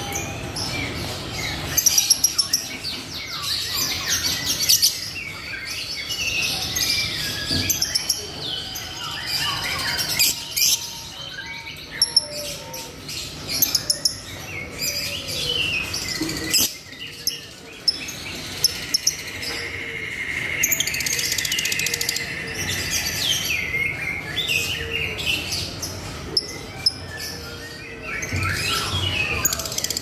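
Caged lovebird chirping and chattering, in strings of rapid, high-pitched notes that come and go, with a longer held note about two-thirds of the way through.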